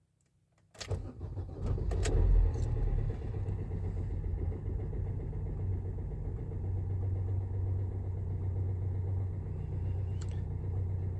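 Fiat Fiorino van's diesel engine starting about a second in, running up loudly, then settling into a steady idle. It starts after its corroded earth strap was cleaned and refitted.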